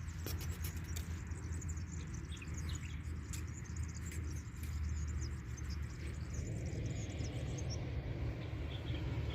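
Small birds chirping in quick, high twitters, which die away about seven and a half seconds in, over a steady low rumble.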